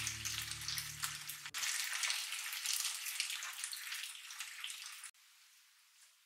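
Potato slices and pieces of half-dried pollock sizzling and crackling in hot oil in a frying pan. The sizzle cuts off sharply about five seconds in, leaving only a faint sizzle.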